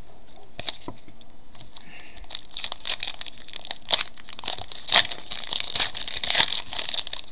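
A trading-card pack's wrapper being torn open and crinkled: a few light clicks at first, then dense crackling from about two seconds in.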